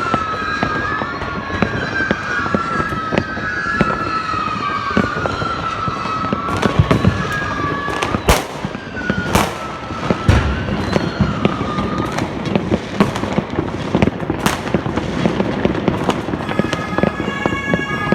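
New Year's Eve fireworks: dense, continuous crackling of firecrackers and rockets, with several sharp bangs. A wavering high whistle runs through the first two-thirds and stops.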